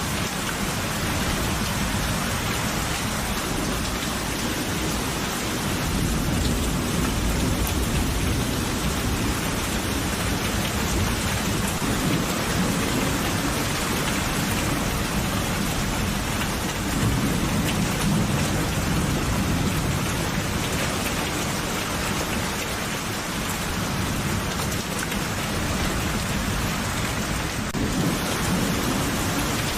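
Steady heavy rain falling, with low thunder rumbling underneath that swells up twice.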